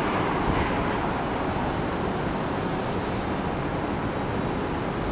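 Steady downtown background noise: an even, unbroken rush with a low rumble, such as distant traffic and moving air, with no distinct events.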